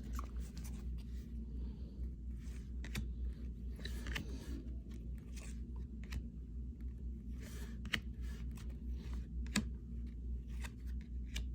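Trading cards and a pack wrapper being handled: a string of short scratchy rustles, crinkles and flicks as the pack is opened and the cards are slid through, over a steady low hum.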